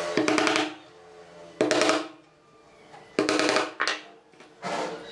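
Hammer driving nails into a pine board: short runs of quick blows, each ringing briefly, in about four groups with pauses between.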